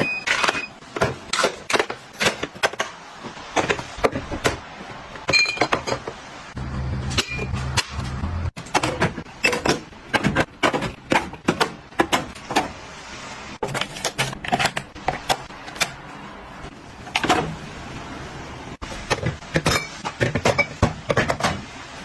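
Repeated knocks, clicks and clinks of kitchen containers and utensils being handled and set down, with a few short ringing clinks.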